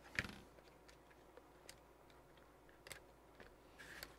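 Faint scattered clicks and taps of hands working the plastic parts of a 1/14 Losi Mini 8ight buggy as the shock ball ends are popped off their pivot balls. The sharpest click comes just after the start.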